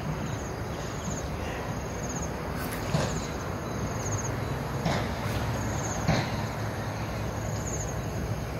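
Outdoor evening ambience: a steady wash of background noise with an insect chirping in short, high trills every second or two, and a few faint knocks.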